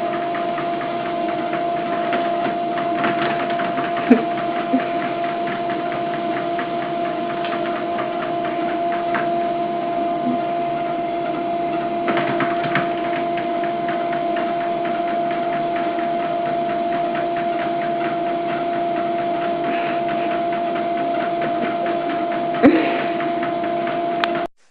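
A small electric motor running with a steady hum at a constant pitch and a fine rattle, with a few scattered clicks and a knock about four seconds in and again near the end. It cuts off abruptly just before the end.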